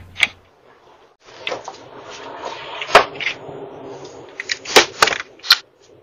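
A front door's handle and lock clicking and rattling as someone tries to get in, picked up by a doorbell camera's microphone over a rustling hiss. There are sharp clicks near the start, about three seconds in, and several in quick succession near the end.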